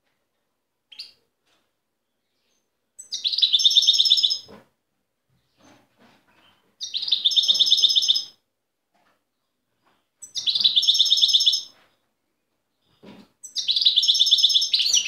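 A wild-caught European goldfinch singing its wild song in short phrases of rapid repeated high notes. Each phrase lasts about a second and a half, with pauses of two to three seconds between; there are three full phrases, and a fourth starts near the end.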